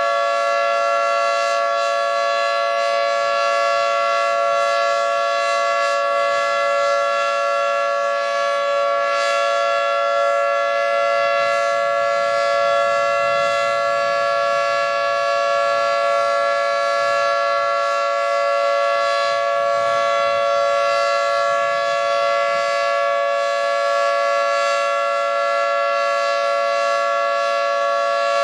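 Federal Signal 2T22 dual-tone rotating outdoor warning siren sounding a steady two-note chord at a constant pitch during its routine test signal.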